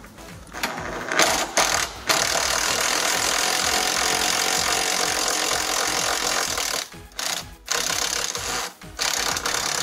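Handheld power driver with an 8 mm socket on an extension, spinning a bolt loose: a few short runs, one steady run of about five seconds, then two more short runs near the end.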